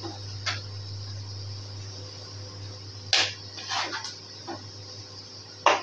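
Light clicks and taps of hands working at a steel cooking pot, a few short strikes with the sharpest about three seconds in and just before the end, over a steady low hum.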